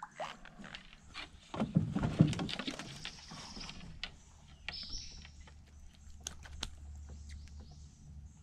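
Handling noises of landing a shellcracker (redear sunfish) into a kayak: a string of knocks, clicks and rustling against the hull and fishing line, loudest about two seconds in.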